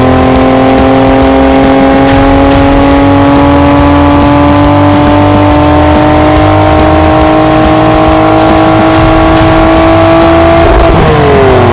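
Dirt bike engine held at high revs, its pitch climbing slowly, then dropping steeply near the end. Rock music with a steady beat plays underneath.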